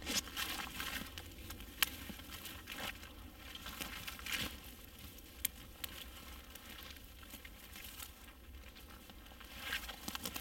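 A dry, dead conifer branch being pulled up off the forest floor, its twigs and brown needles rustling and crackling, mixed with footsteps on moss and undergrowth. Irregular scrapes and crackles, with a few sharper cracks, the loudest a little under two seconds in.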